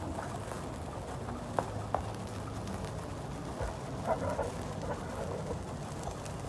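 Matches burning down on a brick, giving a few faint crackles and ticks over steady background noise: two sharp ticks at about one and a half and two seconds in, and a short cluster of crackles just after four seconds.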